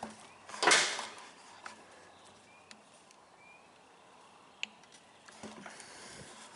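Faint handling noise: a few small clicks and scrapes as new fuel line is pulled back through a plastic fuel tank with pliers, with a brief louder rustle about a second in.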